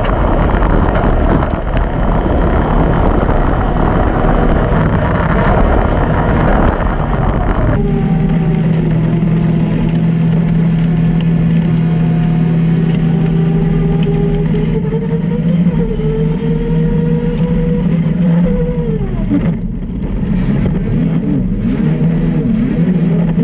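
Arctic Cat Wildcat XX race UTV's engine running hard under racing load, heard from inside the cab with heavy wind and rough-ride noise. About eight seconds in, the sound changes abruptly to a steadier, clearer engine note. Near the end the pitch dips briefly, then climbs again.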